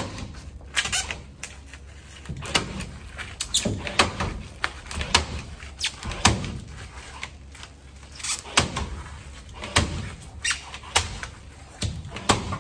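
Cordless staple gun firing staple after staple, about twenty sharp shots spaced roughly half a second to a second apart, fastening foil-faced bubble insulation to a wooden board.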